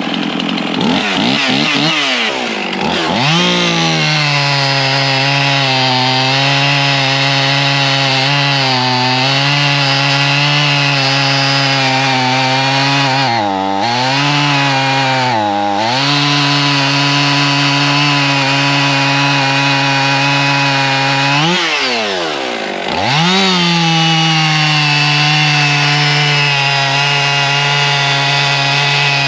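Husqvarna 55 two-stroke chainsaw running at full throttle while cutting through a log, its engine note held high and steady. The pitch dips briefly a few times and drops deeply once about two-thirds of the way through before climbing back. The cut goes pretty slow.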